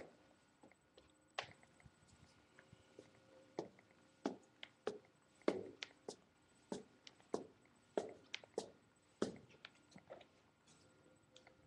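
Handling noise: the camera's microphone bumping and rubbing against clothing as it is carried about, with faint knocks that come irregularly at first and then about every half second.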